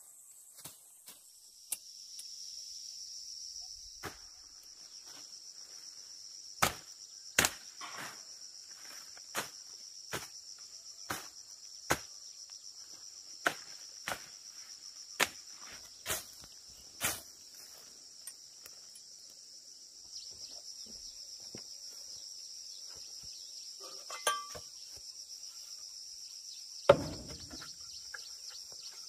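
Insects droning steadily in a high band, with irregular sharp knocks over it, roughly one a second at times, and one heavier thud near the end.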